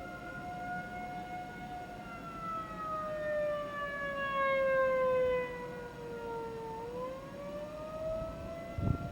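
Outdoor civil defense warning siren sounding a wail: its pitch sinks slowly for about five seconds, then starts climbing again, and it swells louder midway as the sound sweeps past. A brief low thump comes near the end.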